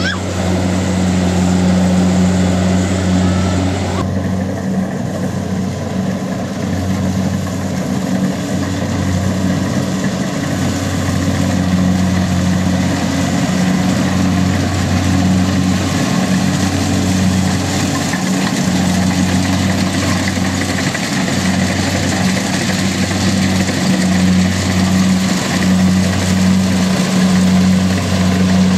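Kubota DC-70 combine harvester's diesel engine running steadily: a low, even drone that dips briefly now and then.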